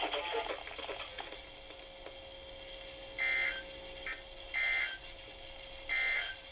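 Emergency Alert System SAME digital data bursts received over radio: three short, shrill warbling bursts about 1.3 seconds apart, the coded signal of a required weekly test.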